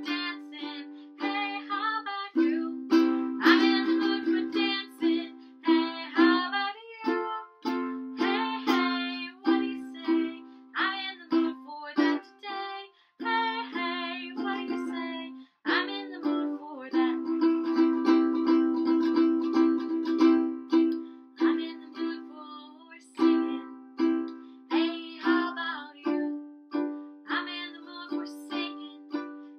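Ukulele strummed in a steady rhythm, chords changing every second or so, with a woman's voice singing along at times.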